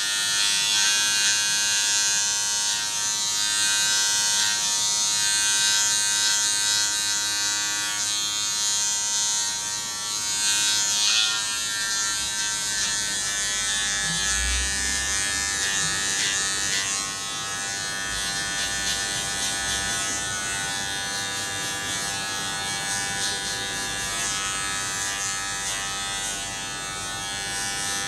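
Electric hair clippers running with a steady buzzing hum; the pitch shifts slightly about eleven seconds in.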